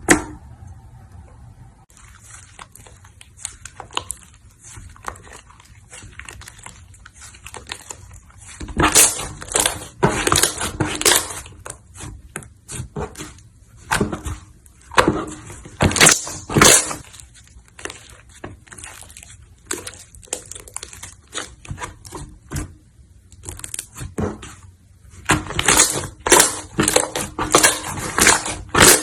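Slime being squeezed and pressed by hand, making crackling and popping clicks: sparse and quiet for the first several seconds, then loud dense crackling in spells.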